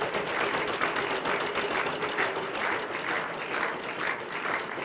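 Game-show prize wheel spinning, its pointer clicking rapidly against the pegs on the rim; the clicks gradually spread out as the wheel slows.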